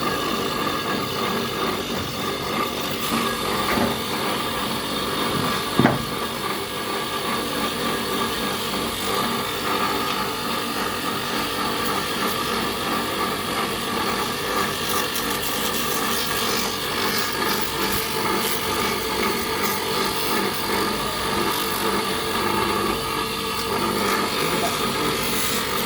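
Workshop machine running steadily with a constant hum and a mechanical rasp, with one sharp click about six seconds in.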